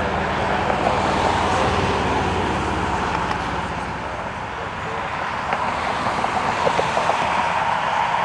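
Steady engine and traffic-like rushing noise, with a low hum that fades after the first few seconds.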